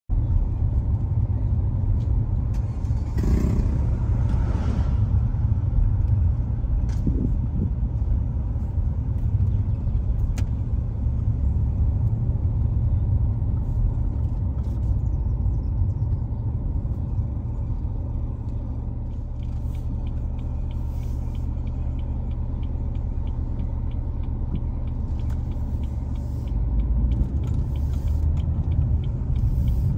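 Road noise inside a moving car: a steady low rumble of engine and tyres, with a brief louder hiss about three seconds in.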